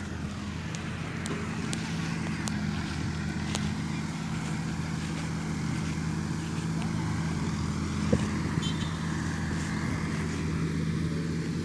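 Excavator's diesel engine running steadily, with a brief knock about eight seconds in.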